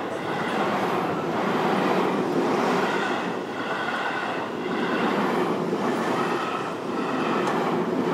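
A train passing through a railway level crossing at close range, its noise swelling and easing a few times as the cars go by.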